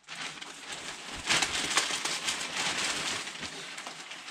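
Plastic packaging rustling and crinkling as it is handled and pulled apart, louder from about a second in.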